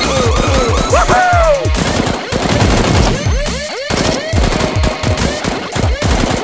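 Rapid automatic gunfire sound effects in bursts of many quick shots, with background music.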